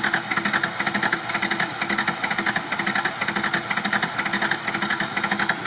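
A pickup truck's engine being cranked over by its starter in a fast, even rhythm without catching, as the driver keeps trying to restart it after it stalled in deep water.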